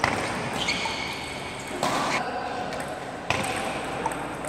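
Table tennis balls knocking off bats and the table in a rally, several sharp clicks at uneven intervals, with more ball clatter from other tables in play.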